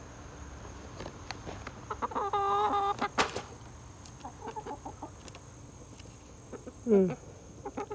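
Backyard chickens clucking: one call held for nearly a second about two seconds in, then scattered quieter clucks and chirps, with a sharp click just after the call.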